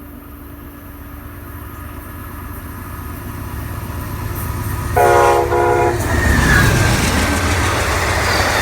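Amtrak P42DC diesel locomotive approaching, its rumble growing steadily louder, then sounding two short horn blasts about five seconds in. Right after, the train passes close by with a loud rush of wheel noise.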